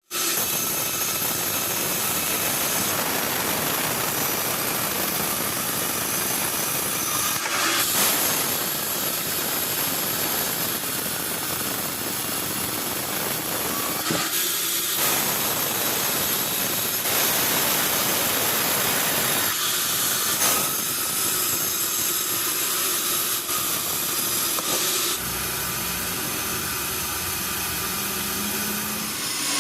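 Sawmill saw running and cutting timber: a steady mechanical hiss and whine that shifts abruptly in character several times.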